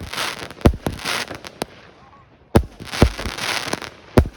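Consumer fireworks going off overhead: a string of sharp bangs, each followed by a crackling hiss, with a short lull about two seconds in before more bangs.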